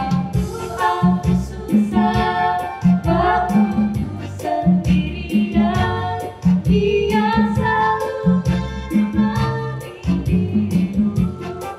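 Women singing an Indonesian children's worship song together over a recorded backing track with a steady beat.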